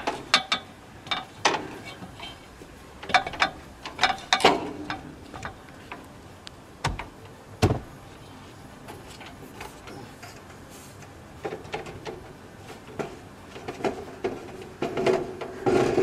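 Footsteps and irregular knocks and clanks on an aluminium extension ladder as a man in rubber boots climbs it carrying a length of eavestrough. Two low thumps come about seven seconds in.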